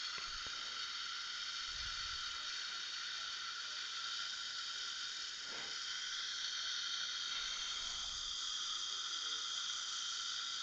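Dental micro-suction tip hissing steadily as it draws air and fluid around the implant opening.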